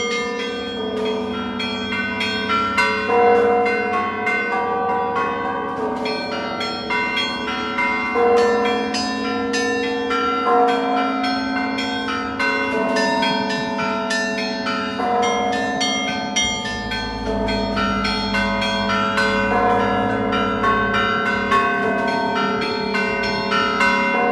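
Russian Orthodox church bells rung together in a continuous peal: small bells strike rapidly and repeatedly over the longer ringing tones of larger bells.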